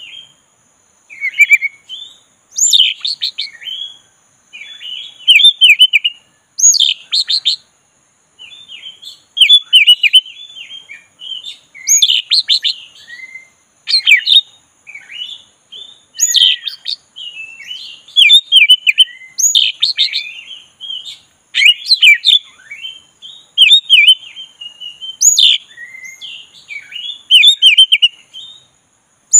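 Caged black-breasted oriental magpie-robin (kacer dada hitam) singing loudly: rapid, varied phrases of whistles and chirps, broken by short pauses.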